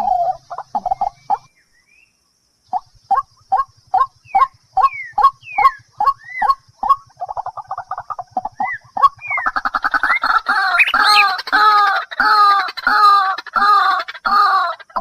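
Birds calling: short, clucking calls repeated a couple of times a second, some sweeping upward in pitch. They break off for about a second near the start, then grow busier and louder toward the end.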